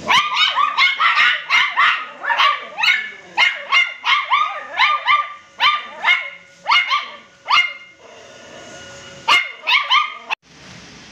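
Crossbreed puppy yapping, with high-pitched barks in a rapid series of about two a second. The barking pauses about 8 s in, then comes back with two more yaps before it stops suddenly.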